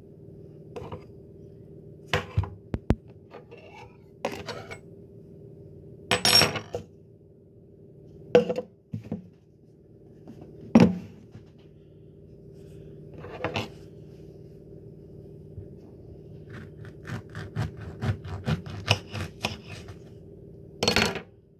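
Kitchen handling noises as a lemon and a plastic sugar tub are handled: separate knocks, clatters and scrapes, the loudest a sharp knock about halfway through. Near the end comes a quick run of light ticks, all over a steady low hum.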